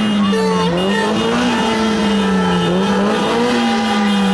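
Several horns blaring together in a continuous din, the lowest one wavering slowly up and down in pitch, with others overlapping at higher pitches.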